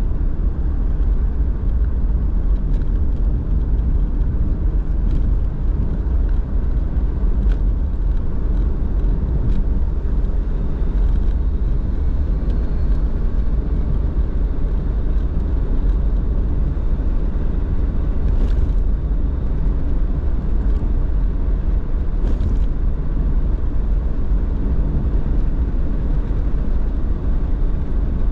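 Car driving at a steady pace, with a constant low rumble of engine and tyre road noise and a few faint ticks over it.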